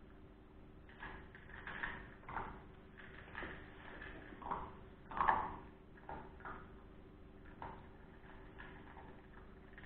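Russo-European laika puppy eating dry kibble from a steel bowl on a wire stand: irregular crunching and clinks of the bowl, strongest a little past five seconds in, over a faint steady hum.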